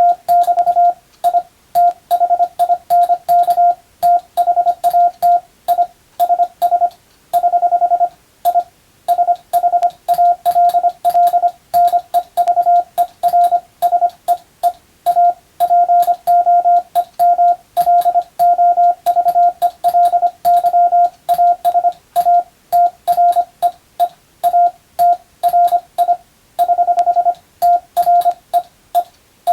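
Morse code (CW) practice tone: one steady beep pitch keyed on and off in dots and dashes at a brisk sending speed, with short gaps between characters and words. A faint click marks the start of each element.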